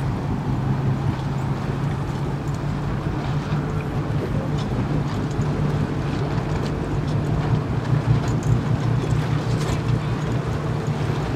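A boat's motor running steadily at a low hum, with wind on the microphone and water rushing past.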